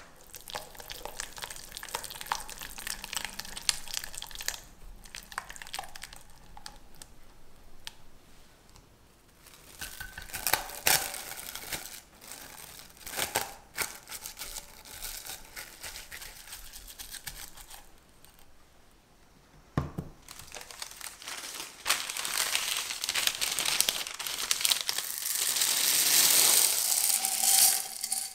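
A silicone whisk stirring butter into lemon cream in a glass bowl, then plastic cling wrap crinkling as it is pressed down onto the cream. Loudest near the end: a long rustle and rattle as dried red beans are poured into a parchment-lined tart shell as pie weights.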